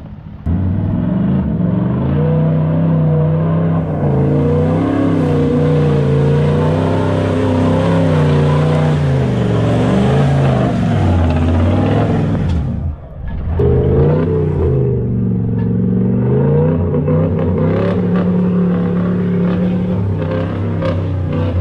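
Toyota Land Cruiser 78 troop carrier's engine revving up and down repeatedly as the truck works through soft landslide mud. It dips briefly about 13 seconds in, then picks up again.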